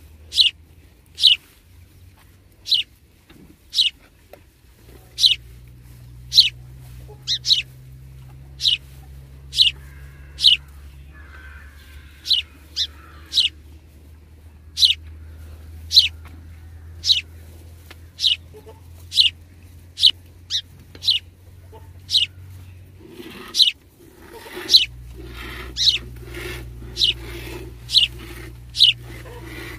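Cow being milked by hand into a steel bucket: short hissing squirts of milk striking the pail, about one a second, coming closer together and fuller-sounding in the last few seconds as milk collects in the bucket.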